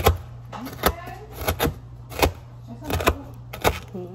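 Chef's knife chopping crispy cooked bacon on a wooden cutting board: a series of sharp knocks, about seven or eight, unevenly spaced at roughly one to two a second.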